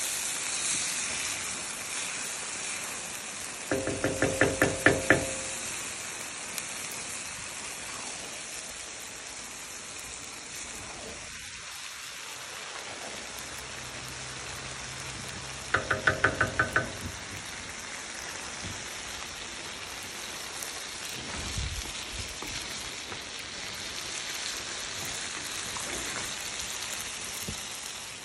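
Chicken karahi frying in a large steel pan over a gas burner: a steady sizzling hiss. Twice, about four seconds in and again about sixteen seconds in, a quick run of ringing knocks on the metal.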